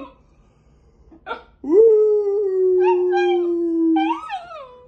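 Basenji yodelling. A short sound comes about a second in. Then one long call swoops up and holds steady for a couple of seconds, before ending in a rising then falling warble that fades.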